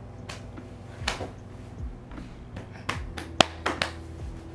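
Scattered light taps and clicks, about eight in all, the sharpest a little past the middle.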